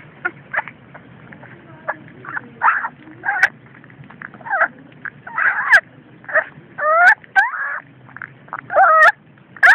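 Young puppy whimpering while being held and bottle-fed: short, high cries, several gliding up or down in pitch, coming more often and louder in the second half.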